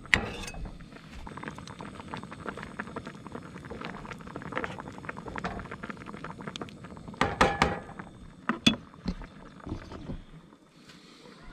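Fish simmering in coconut cream in a frying pan on a gas camp stove, a busy bubbling crackle. A sharp tap of a steel cleaver on the pan right at the start, and a few loud clinks of metal tongs against the pan a little past the middle.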